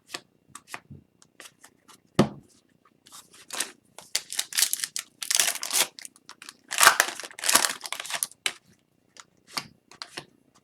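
A foil hockey card pack being torn open and crinkled by hand, with the cards inside being handled and flicked through. There are sparse light clicks at first, then a few seconds of denser tearing and crinkling in the middle.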